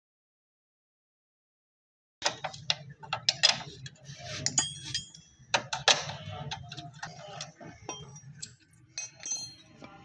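Irregular metallic clicks, taps and short clinks of hand tools working on motorcycle chain-kit parts, over a low steady hum; they begin about two seconds in, after a stretch of dead silence.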